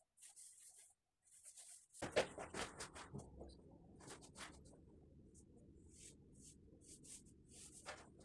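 Paintbrush stroking paint onto a wall while cutting in: a series of faint, short, scratchy swishes, several a second at times, with the busiest run about two seconds in.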